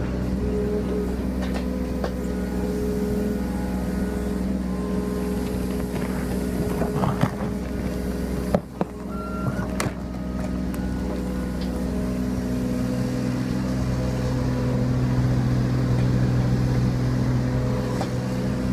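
Kubota U27-4 mini excavator's diesel engine running steadily under hydraulic load while it digs, with knocks and scraping from the steel bucket in soil and stone about seven to ten seconds in. The engine grows louder in the second half as the arm lifts and swings away.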